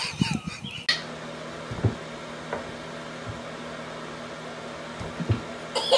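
A steady low hum with a few soft knocks. A short stretch of outdoor sound cuts off about a second in.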